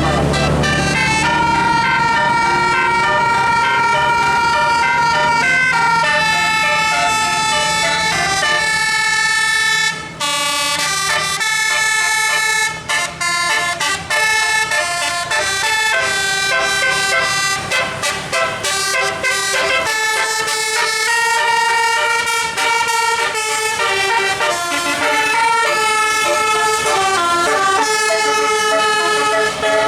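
Bus 'telolet' musical air horn playing a long tune of held and short notes, the pitch stepping from note to note.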